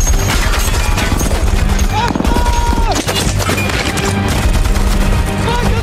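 Rapid, continuous machine-gun fire and impacts of a battle sound mix, with music underneath.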